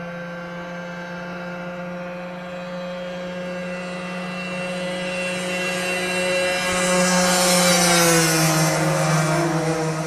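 Yamaha DT125 two-stroke single with a full Big One expansion-chamber exhaust, held at steady revs as it approaches and grows louder. It passes about eight seconds in, its pitch dropping as it goes by.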